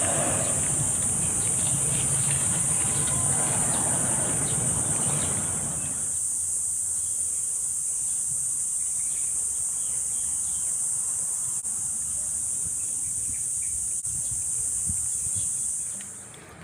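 Steady, shrill insect chorus holding one high pitch, stopping abruptly near the end. For the first six seconds a low rumbling background noise lies under it.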